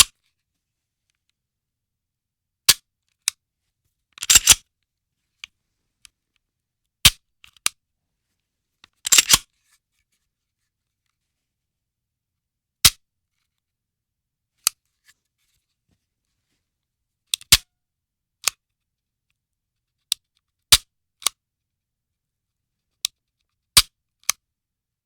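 Pistol dry fire and reload handling: a string of sharp, separate metallic clicks of the action snapping on an empty chamber, spaced irregularly a second or several apart. Twice, about four and nine seconds in, a longer rattling cluster of clicks.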